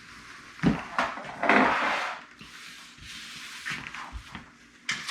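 Tools and a piece of drywall being handled: a sharp knock, then about a second of scraping and rustling, and a few lighter clicks near the end.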